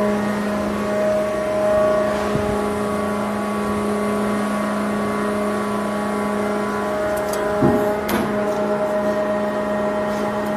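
Hydraulic power unit of a Y81T-250 metal scrap baler, driven by two 22 kW electric motors, running with a steady, even-pitched whine. A couple of short knocks come about eight seconds in.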